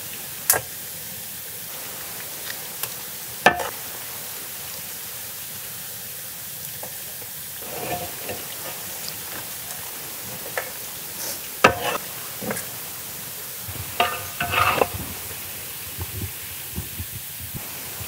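Hot oil sizzling steadily under a batch of fried quails while a metal ladle scoops them out of a large pan, knocking and clinking against the metal a few times. It is heard with a cluster of clinks about two thirds of the way through. The frying is finished and the birds are being lifted out.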